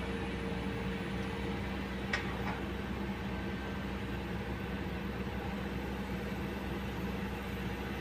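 Kobelco crawler excavator's diesel engine running steadily with a low, even hum. Two light clicks come a little over two seconds in.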